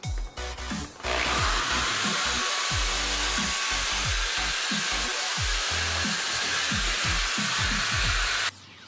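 Handheld electric drill spinning up about a second in and running steadily as it bores into the end of a wooden stick, then stopping abruptly near the end. Electronic music with repeated falling bass sweeps plays underneath.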